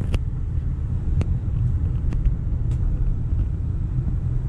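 Steady low rumble of a moving car, heard from inside the cabin, with a few sharp clicks spread unevenly through it.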